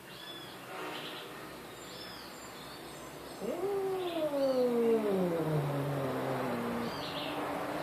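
A cat gives one long, drawn-out yowl that starts about three and a half seconds in and slides steadily down in pitch over about three seconds. Short high chirps repeat every second or two in the background.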